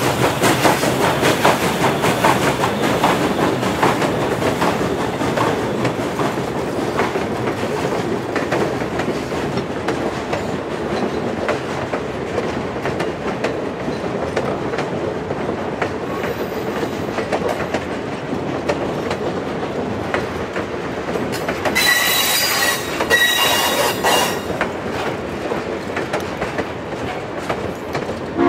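Chesapeake & Ohio 2-6-6-2 Mallet steam locomotive No. 1309 passing close, its exhaust and running gear loudest at first. Passenger coaches follow, rolling by with a steady clatter of wheels over the rails. About three-quarters of the way through, the wheels squeal on the curve for a couple of seconds.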